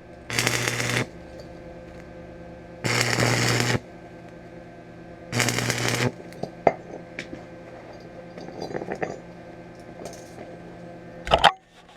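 Aerosol spray paint hissing onto a freshly welded steel pulley in three short bursts, each just under a second long, over a steady low hum. Small clicks and taps follow, with a sharper knock near the end.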